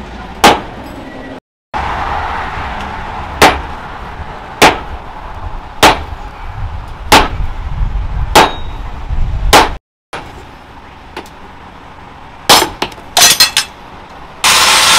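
Sledgehammer blows ringing on a red-hot steel round bar held on an anvil, about one strike every second and a bit, then a few quicker, lighter strikes. A loud steady rasping noise takes over just before the end.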